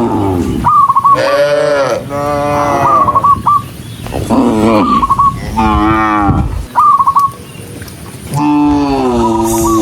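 Cattle mooing, about five long moos one after another from several animals, some sliding down in pitch. Short higher warbling calls recur between them every couple of seconds.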